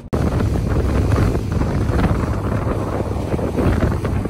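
Heavy wind buffeting the microphone on a party boat under way, over the low rumble of the boat running. It starts abruptly about a tenth of a second in and stays loud and even.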